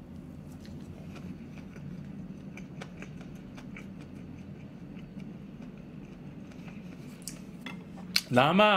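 Close-miked chewing of a mouthful of food: faint, scattered soft clicks and smacks over a steady low hum.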